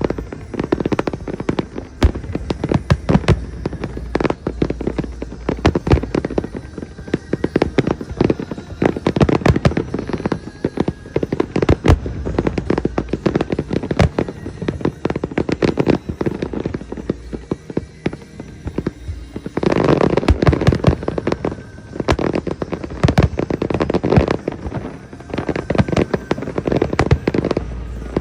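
Fireworks display: a rapid, continuous barrage of bangs and crackles, growing denser and louder about two-thirds of the way through.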